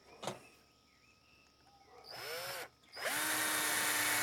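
Cordless drill driving a screw into a wooden 2x4: a light tap near the start, a short blip of the motor about two seconds in, then the motor runs steadily from about three seconds on as the screw goes in.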